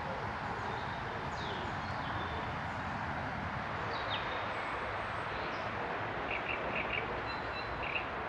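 Scattered short bird chirps, with a few quick notes in a row about six and a half seconds in, over a steady background rush.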